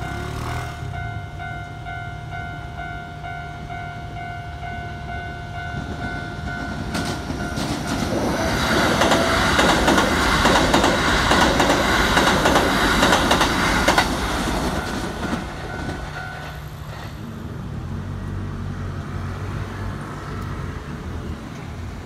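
Keikyu 1500 series six-car electric train passing close by, with wheels clacking rhythmically over rail joints. The passage is loudest from about 8 to 14 seconds in and then fades. Over it a level-crossing warning bell rings steadily and stops about 16 seconds in.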